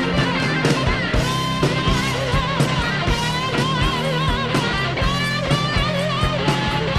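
Rock music: a lead electric guitar plays bent, wavering notes over a steady drum-kit beat.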